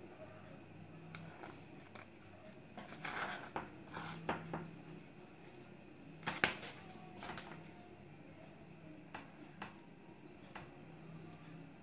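Faint rustling and light clicks of hands working a duck's wing flight feather, peeling a thin strip of quill off its shaft with a fingernail. A sharper click stands out about six seconds in.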